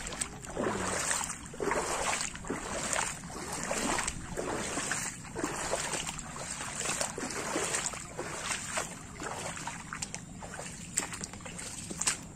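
Footsteps wading through shallow floodwater, a splash and slosh with each step about once a second.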